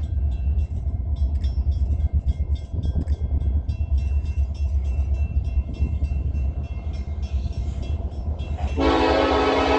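Steady low rumble of a train with faint ticks, then a locomotive air horn sounds loudly near the end, a single held blast made of many tones at once.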